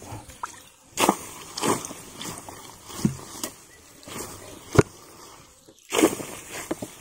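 Small wooden boat being paddled through dense swamp grass and floating water lettuce: irregular swishes and rustles of the paddle and bow pushing through the plants, with a single sharp knock a little before five seconds in.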